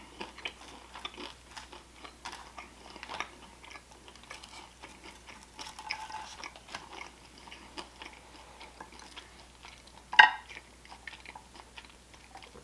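A person chewing and biting food up close, wontons and salad, with many small irregular mouth clicks and crunches. About ten seconds in there is one short, much louder sharp sound.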